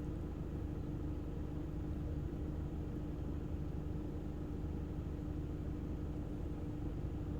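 Steady low background hum and rumble with one constant droning tone, unchanging throughout.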